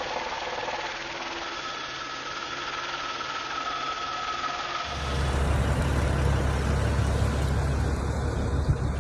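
Steady vehicle noise from inside a moving car, with a faint steady tone. About five seconds in, it changes abruptly to a louder, steady low rumble.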